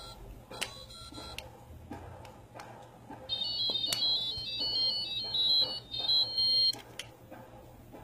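Toy phone's electronic tune: a high, stepping beep melody from about three seconds in, lasting around three and a half seconds, after a brief beep near the start. Sharp plastic clicks and knocks come and go as the greenwing macaw works at the toy phone with his beak.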